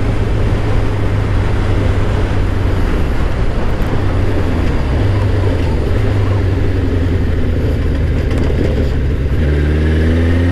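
2000 Suzuki Katana's inline-four engine running at road speed, half buried under heavy wind noise on the microphone. Near the end the wind eases and the engine note comes through clearly, rising slightly.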